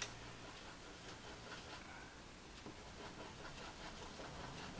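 Faint scratching of a Caran d'Ache pastel pencil on paper, a run of quick, irregular short strokes.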